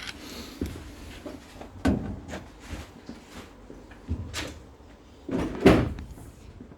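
Several dull clunks and knocks from heavy cables and hardware being handled in a switchboard: three main knocks, the loudest near the end, with lighter clicks between.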